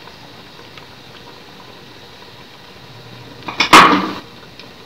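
Chicken and oil sizzling faintly in a steel pot while tomato paste is scraped in from a bowl with a spatula; about three and a half seconds in comes one loud, short clatter of the utensils against the pot.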